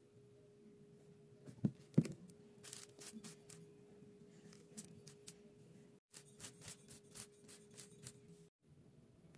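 Faint handling sounds of a plastic oil bottle and hands on a bare motorcycle cylinder as the bore is oiled and wiped: two sharp knocks about two seconds in, the second louder, then scattered light clicks. A steady low hum runs underneath.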